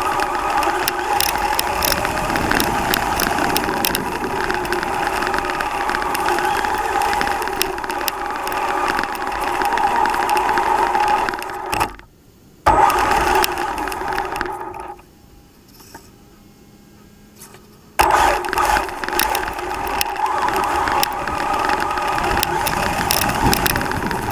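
Traxxas Slash Ultimate RC truck driving, its brushless motor and drivetrain giving a steady whine, with rattling and sharp clicks from the chassis. The sound drops away briefly about halfway through, then again for about three seconds, before the whine and rattle return.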